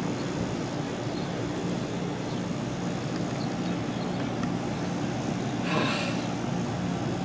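A steady low mechanical hum like a distant engine, with a brief sharper sound about six seconds in.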